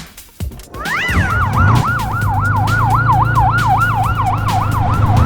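Emergency vehicle siren switching on about a second in, gliding up and then settling into a fast yelp of about four rises and falls a second, over a steady low engine hum.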